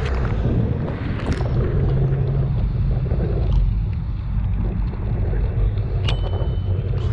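Wind buffeting the microphone of a camera on a moving bicycle, with a steady low rumble of riding. A few sharp clicks or rattles, and a short high ring about six seconds in.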